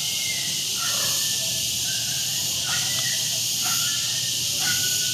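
A steady, high-pitched chorus of insects in rural tropical vegetation, with a few faint, short tonal calls over it.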